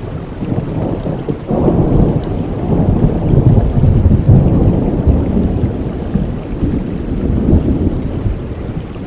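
Steady rain with a low roll of thunder that swells about a second and a half in and slowly dies away.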